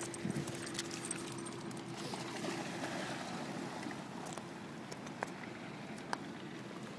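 Faint splashing of a puppy swimming away through shallow water, with a low steady hum that fades after the first couple of seconds.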